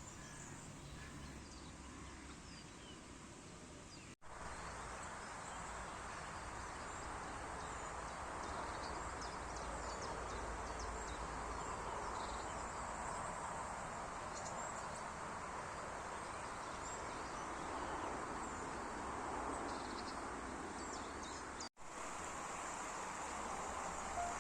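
Garden ambience: a steady background hiss with faint, scattered bird chirps. The sound drops out abruptly twice, about four seconds in and near the end.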